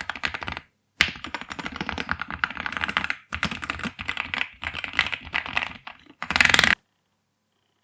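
Keychron Q4 HE mechanical keyboard with Hall effect magnetic switches being typed on quickly, in runs of fast key clicks broken by short pauses. A last very rapid flurry of keystrokes comes near the end, then the typing stops.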